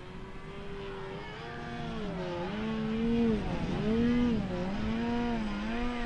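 Electric motor and propeller of an FMS 2000mm de Havilland Beaver RC model plane in flight, a steady hum whose pitch rises and falls several times as the throttle changes. It grows louder as the plane comes closer.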